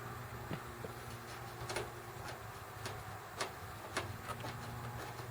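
Irregular light clicks and ticks, about one or two a second, from an LED work light's swivel mount being turned side to side by hand, over a steady low hum.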